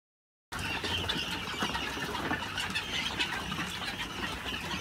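A large flock of young guinea fowl keets peeping and chirping all at once, a dense chatter of many short, high calls. It starts about half a second in.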